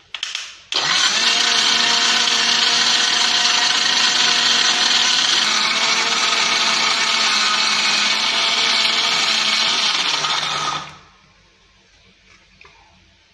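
Electric mixer-grinder running, grinding coconut, salted mango and green chillies into a thick chutney in its steel jar. It starts just under a second in, runs steadily for about ten seconds, and cuts off near the end.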